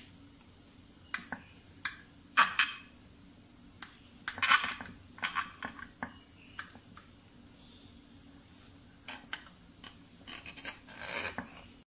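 Metal knife clicking and scraping against a glass baking dish while working into a baked brownie, in scattered short bursts, the loudest about two and a half and four and a half seconds in, with a cluster near the end.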